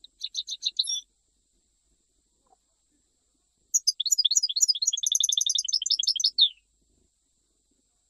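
European goldfinch of the Algerian Jijel song type singing: a short burst of rapid high twittering notes at the start, then a pause, then a longer, faster twittering phrase a few seconds in.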